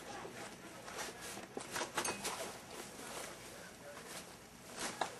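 A Border collie puppy moving about and chewing a toy: irregular soft rustles and small knocks.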